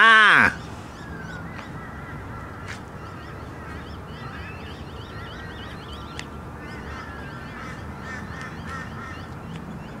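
The last caw of a Torresian crow's series of harsh, nasal calls, ending about half a second in. After it, a faint dawn chorus of small birds chirping and twittering.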